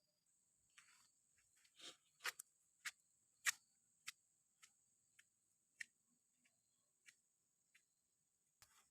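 Faint, irregular sharp clicks and taps, about a dozen, the loudest about two to three and a half seconds in, over a faint steady high-pitched hum.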